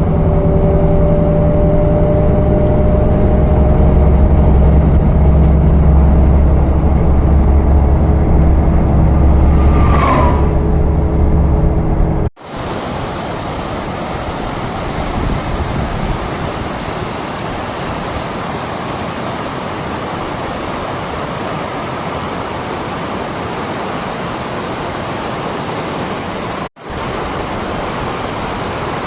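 A vehicle's engine and road noise drone steadily with a few held tones. This cuts off abruptly about twelve seconds in to the even, steady rush of a river waterfall, which runs on across another brief cut near the end.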